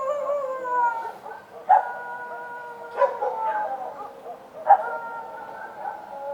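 Street dogs howling: long drawn-out howls that slide down in pitch and overlap, with a fresh one starting every second or two.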